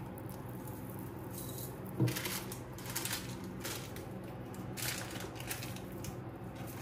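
A beaded choker necklace being handled and set on a velvet bust display: a scatter of small metallic clinks and rustles from its metal settings and bead drops, with a soft thump about two seconds in, over a faint steady hum.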